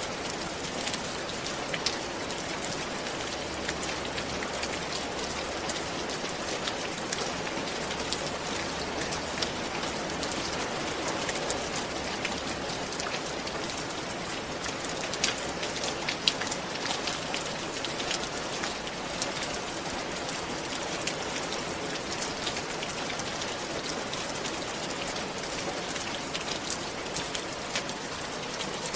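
Steady rain falling on a roof, an even hiss dotted with the sharp taps of individual drops.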